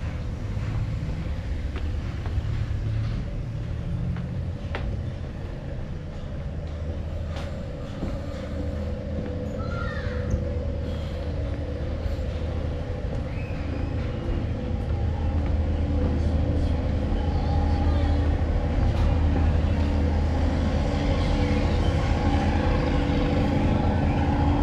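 An engine running steadily with a low, even hum that grows louder about halfway through.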